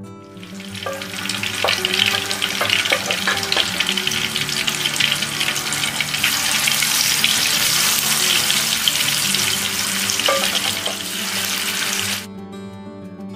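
Marinated seela (barracuda) fish steaks sizzling and crackling in hot oil in a non-stick frying pan as they are laid in one by one with a wooden spatula. The sizzle rises about half a second in and cuts off abruptly near the end, leaving soft background music.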